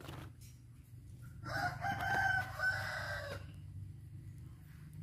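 A rooster crowing once, a single call of about two seconds starting about a second and a half in.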